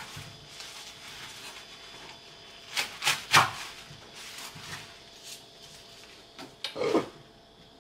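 Kitchen knife chopping leafy greens on a wooden cutting board: three quick chops about three seconds in, then a softer pair near the end.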